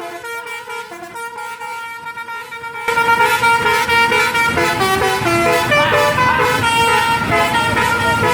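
Telolet bus horn: a set of musical air horns playing a tune of changing notes. It is fairly loud at first and much louder from about three seconds in.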